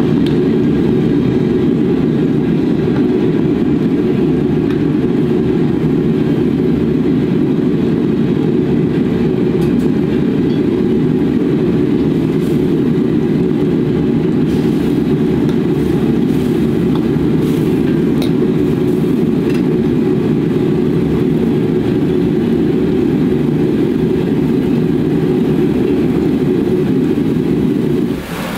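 Steady low rush of a gas wok burner's flame under a wok of boiling stock, dipping briefly near the end, with a few faint clinks of utensils in between.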